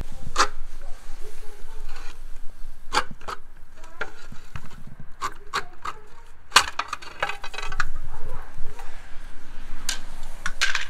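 Roofing slate being trimmed on a lever-arm slate cutter: a series of sharp snaps and crunches as the blade shears chips off the slate's edge, with a quick run of clicks a little past the middle.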